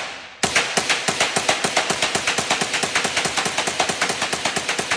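Gun firing a long, rapid string of evenly spaced shots, about seven a second, beginning about half a second in, loaded with .22 Stinger rounds.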